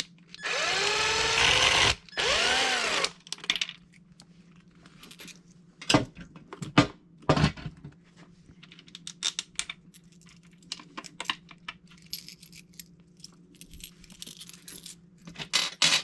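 A power drill runs in two short bursts, its motor pitch rising and falling, as it backs out a stubborn screw. After that come scattered clicks and taps of small hardware being handled.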